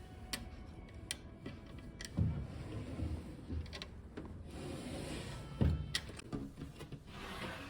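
Wooden drawers or furniture being handled: sliding and rubbing, light clicks, and two heavier knocks, one about two seconds in and one past the middle.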